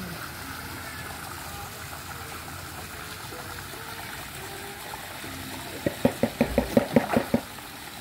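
Water from a recirculating pond system's outlet pipe splashing steadily into a small fish pond. About six seconds in, a quick run of about a dozen sharp, pitched pops lasts a second and a half and is the loudest sound.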